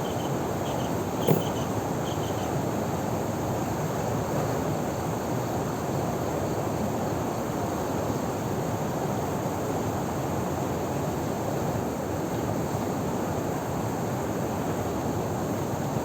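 Steady rushing of a small waterfall and river flowing. A single sharp knock comes a little over a second in, and faint short chirps sound in the first couple of seconds.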